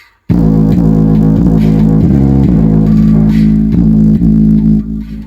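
Loud, bass-heavy music played through a homemade speaker box under test, cutting in abruptly a moment after a brief silence.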